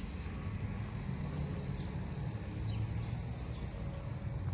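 Steady low outdoor rumble, with a few faint, short bird chirps scattered through it.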